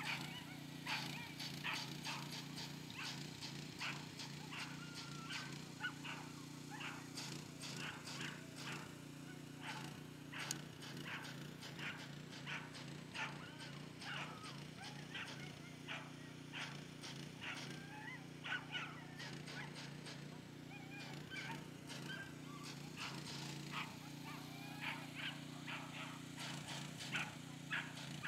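Dogs barking and yelping excitedly, many short sharp barks at irregular intervals, over a steady low hum.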